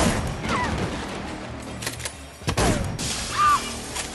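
Action-scene soundtrack: tense score music with several sharp bangs and crashes, the first right at the start and two more close together about two seconds in.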